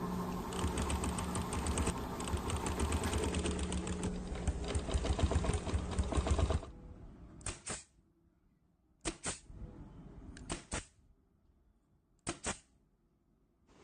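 A small motorised machine running with a fast, even clatter over a steady hum, cutting off abruptly about six and a half seconds in. Four short, sharp hissing bursts follow, two of them doubled.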